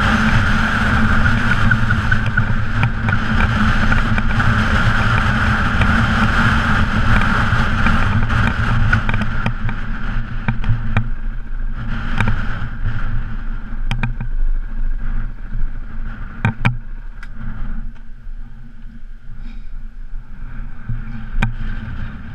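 KTM off-road motorcycle engine running steadily while the bike rides a gravel track, with tyre and road noise. From about halfway through the bike eases off, and sharp clicks and knocks come as it rolls over loose stones. It slows nearly to a stop near the end.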